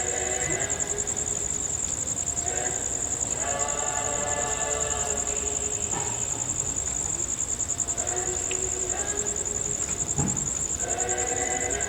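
Crickets chirping in a steady, rapidly pulsing high trill. Over it, a group of people's voices come and go in long held pitched tones.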